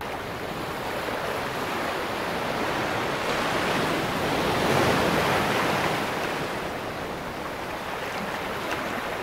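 Steady rushing of wind and waves that swells to a peak about halfway through and then eases.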